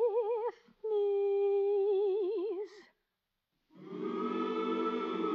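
A woman sings two long held notes with wide vibrato, then falls silent briefly before a sustained chord from the accompaniment comes in, about three and a half seconds in.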